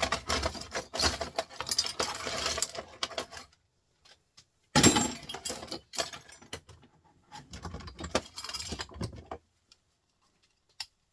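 Loose metal scrap parts from a dismantled printer clattering and clinking as they are handled. The rattling runs for the first few seconds, a sharper, louder clatter comes about five seconds in, and the rattling goes on until it stops near the end.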